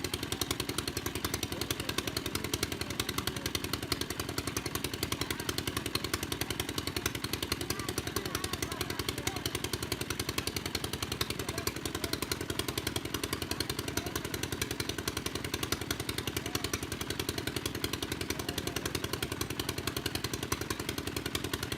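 Small engine-driven water pump running steadily at an even, rapid beat, pumping water out of the pond.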